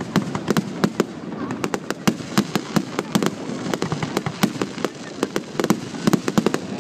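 Fireworks display: aerial shells bursting in quick succession, an irregular volley of bangs and pops several times a second, some overlapping.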